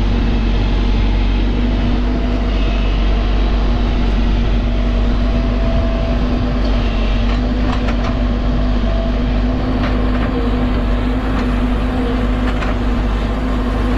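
JCB 140 tracked excavator's diesel engine and hydraulics running steadily under load while it digs, with a few short knocks in the second half.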